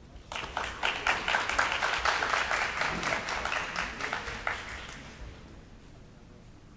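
Audience applauding in a gymnasium hall: a dense spell of clapping that starts abruptly and fades out after about five seconds.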